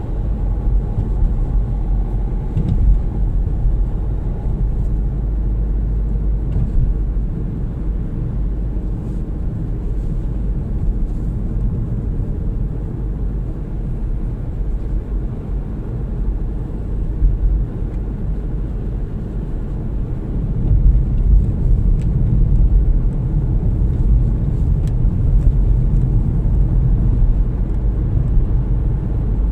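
Road noise heard inside a moving car: a steady low rumble of tyres and engine, a little louder after about twenty seconds.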